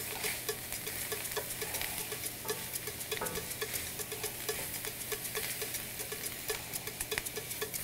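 Wooden spoon stirring chopped apple, red onion and cilantro sautéing in an enameled pan: a light sizzle with repeated soft taps of the spoon against the pan.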